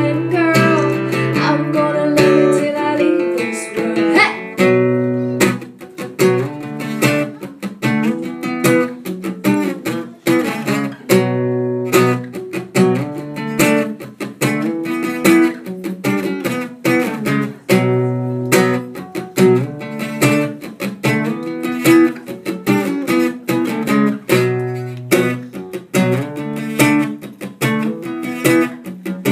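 Acoustic guitar strummed in a steady rhythm, chords changing every couple of seconds, in the instrumental break of a live folk-country song. A woman's sung line trails off in the first few seconds.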